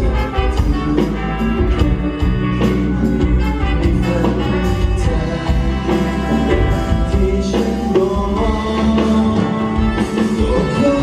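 Live band playing an instrumental passage of a pop ballad with a steady beat and bass, during a concert sound check.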